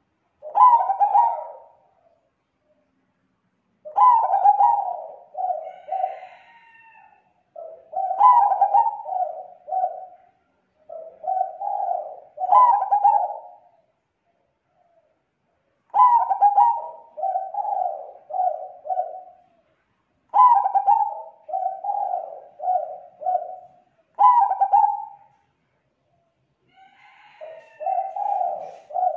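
Zebra dove (perkutut) singing. It gives about eight phrases of rapid, staccato cooing notes, each lasting one to three seconds, with short pauses between them.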